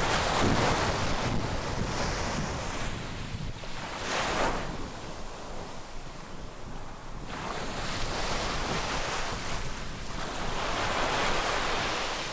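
Small sea waves breaking and washing up the shore in slow swells, each surge rising and fading over a few seconds, with wind buffeting the microphone.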